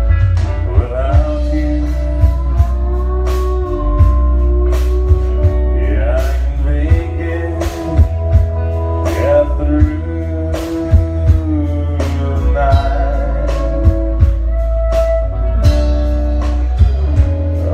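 Live country band playing through a PA: a singing voice over electric guitar, heavy bass and drums.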